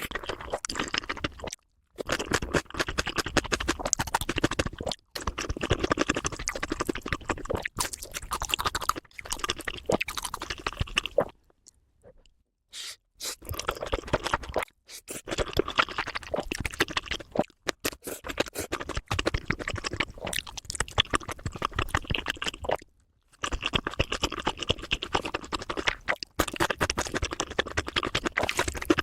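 Close-miked eating sounds of spicy noodles, kimchi and fried chicken: steady chewing with crunches and scraping. The sound stops abruptly for a moment several times, about 2, 5, 12, 23 and 26 seconds in, and starts again.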